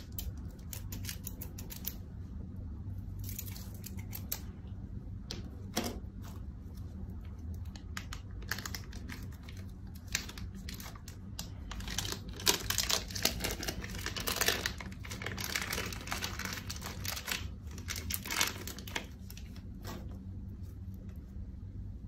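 Slime being squeezed, pulled and stretched by hand, giving a run of small sticky clicks and crackles that grows densest about halfway through.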